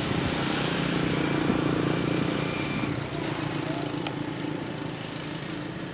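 An engine running steadily, growing fainter about halfway through.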